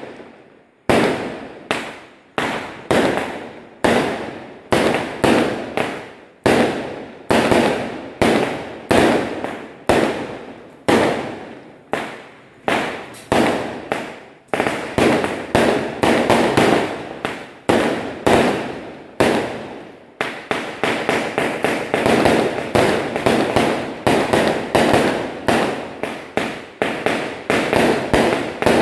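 Aerial fireworks going off in a steady barrage of sharp bangs as shells burst overhead, about two a second, each dying away over a fraction of a second. About two-thirds of the way through, the bangs come faster, three or four a second.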